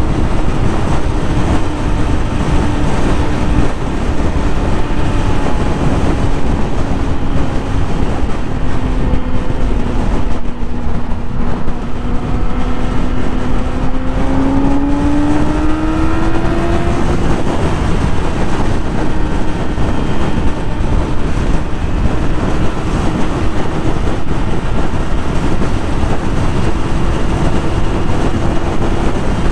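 Yamaha YZF-R6 sport bike's inline-four engine running at steady high revs under loud wind and road rush. The engine note sags about ten seconds in, then climbs quickly around fifteen seconds as the throttle opens, and settles back to a steady pitch.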